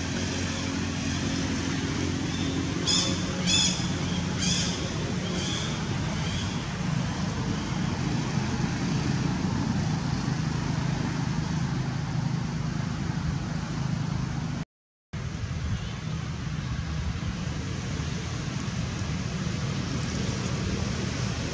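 Steady low rumble with a hum underneath, like distant engines, with a run of five or six short high-pitched calls about three to seven seconds in. The sound cuts out completely for a split second about two-thirds of the way through.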